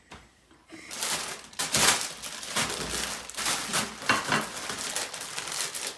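Plastic packaging crinkling and rustling in irregular bursts as it is handled and opened, starting about a second in.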